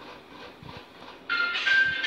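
Faint background noise. About a second and a half in, louder background music cuts in, a melody of held high notes stepping from one pitch to the next.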